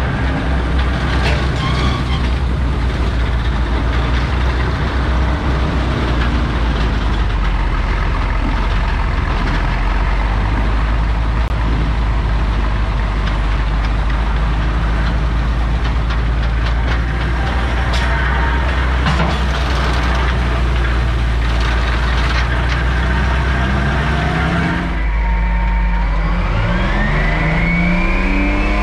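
Lorain cable shovel working, its engine running steadily with clanks and rattles from the dipper and machinery, and a few sharp knocks partway through. Near the end the sound switches to inside the Euclid rock truck's cab, where the truck's engine revs up, its pitch rising steadily.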